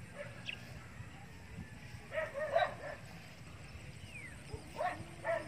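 A dog barking and yipping in short clusters of a few calls, about two seconds in and again near the end.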